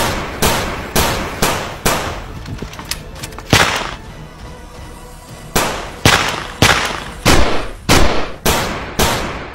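Gunshot sound effects: single shots with echoing tails, about two a second, in two runs with a pause of about two seconds between them.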